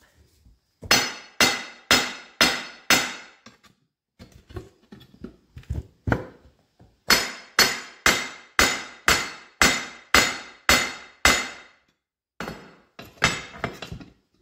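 Hammer striking the steel of a Firestone RH-5 two-piece truck wheel to work its ring loose, in sharp ringing metal blows. A run of about five hard blows comes first, then lighter taps, then a steady run of about ten blows at about two a second, and a few lighter taps near the end.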